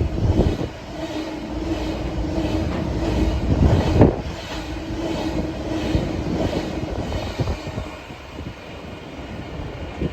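Loaded railroad ballast cars of a work train rolling past, their wheels clacking over the rail joints with a faint steady tone in the rumble. Sharp knocks come a few times, the loudest about four seconds in.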